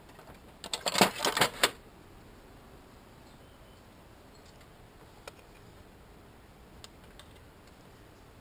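Hand tools or metal parts clattering and clicking for about a second near the start, then a few faint single clicks.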